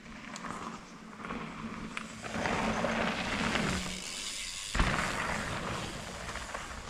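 Mountain bike tyres rolling in fast over a dirt jump line, growing louder with a low hum, going briefly quiet while the bike is in the air over a gap jump, then one sharp thud as it lands, followed by tyre noise fading as it rides away.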